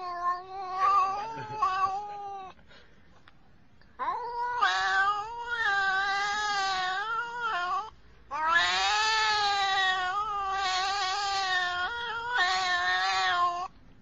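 Black-and-white tuxedo cat yowling: three long, wavering calls, the first ending about two and a half seconds in, the next two each lasting four to five seconds.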